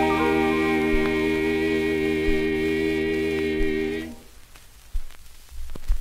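Male Southern Gospel quartet holding the song's final chord, with a shift in the upper voices just after it starts; the chord stops about four seconds in. Then only faint crackle, a few clicks and low thumps remain.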